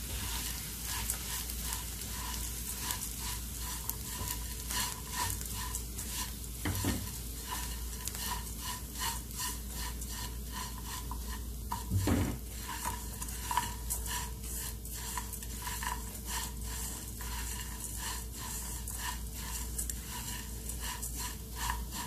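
Spatula stirring and scraping poha (flattened rice) and peanuts around a nonstick pan as they roast in a little oil, with a light sizzle and the rustle of the dry flakes. There are a couple of dull knocks, about a third of the way in and again about halfway.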